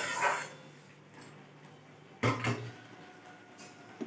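A metal ladle knocking and scraping against an aluminium kadai, with one short clatter about two seconds in over a faint low hum.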